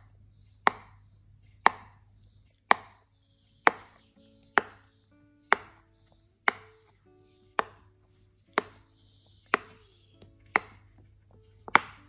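Silicone pop-it fidget toy bubbles popping as a finger presses them in one by one, a sharp pop about once a second.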